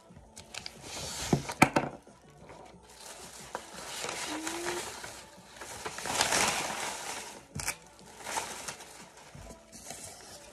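Rustling and crinkling of papers and small objects being handled and sorted, in several spells, with a few sharp knocks as things are put down. The loudest knocks come about a second and a half in.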